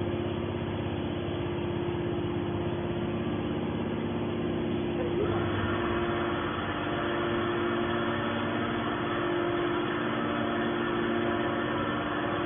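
Aluminum can baler machine running with a steady hum. About five seconds in, the sound fills out with higher tones.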